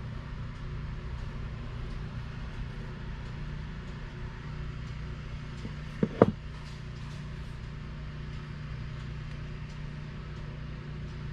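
Steady low machine hum, with one brief sharp pitched sound about six seconds in.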